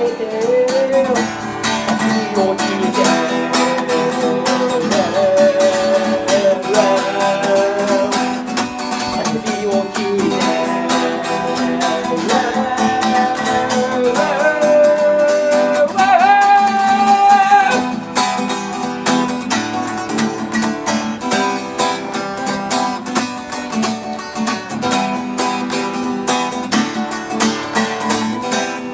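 Acoustic guitar strumming with a sung melody over it; the voice stops about eighteen seconds in and the guitar plays on alone, a little softer.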